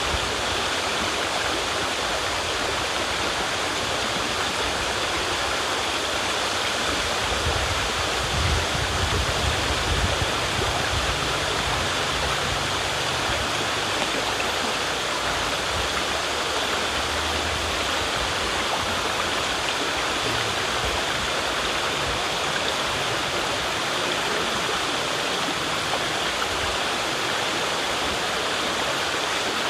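River water rushing steadily, an even dense hiss, with a low rumble swelling briefly about eight to twelve seconds in.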